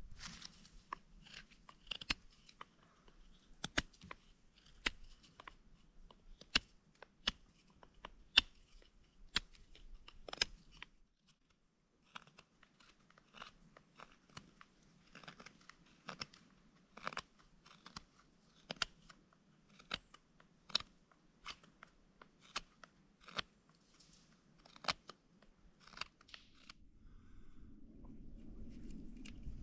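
Knife blade whittling a wooden bow-drill spindle: short, sharp shaving strokes, one or two a second, with a short pause about eleven seconds in.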